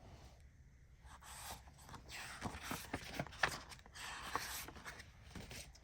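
Faint rustling and scattered light taps of a paper book being handled, starting about two seconds in.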